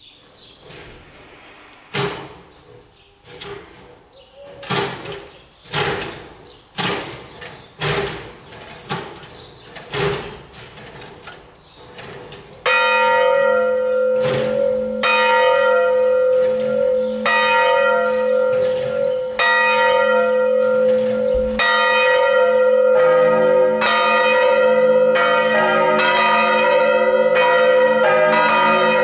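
Swinging church bells starting a full peal. For the first dozen seconds there are only sharp knocks, about one a second, as the bells are set swinging. Then about 13 seconds in a bell starts ringing in a steady swinging peal, and about 23 seconds in a second, lower bell joins it.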